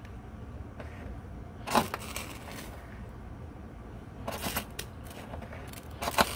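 A knife spine scraped hard down a ferrocerium (ferro) rod to throw sparks: three short, sharp scrapes about two and a half seconds apart, the last the loudest.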